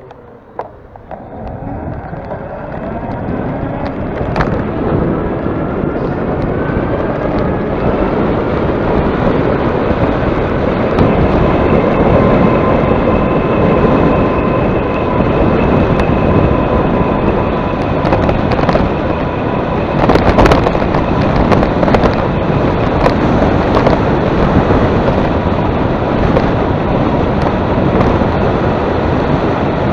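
Heavy wind buffeting the microphone while riding into a headwind, building over the first few seconds and then staying loud. Under it, a motor whine rises in pitch as speed picks up, then holds steady. A few sharp gust cracks come through, the biggest around four seconds in and around twenty seconds in.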